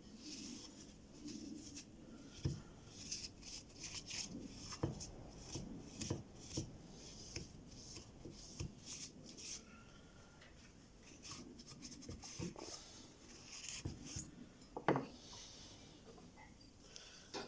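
A gasoline-soaked rag wiping the chainsaw's cylinder and engine parts in irregular rubbing strokes, with a few light knocks as the parts are handled.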